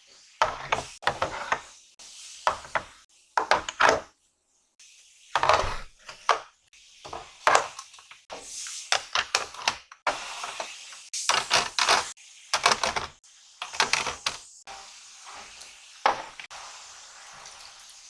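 Painting supplies being handled and set down: a run of knocks and clicks from small objects, with rustling in between.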